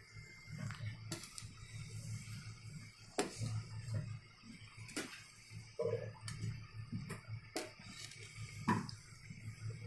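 Samosas deep-frying in a steel kadhai of hot oil, a steady sizzle and bubble, with a steel slotted spoon clinking against the pan several times as the samosas are moved about.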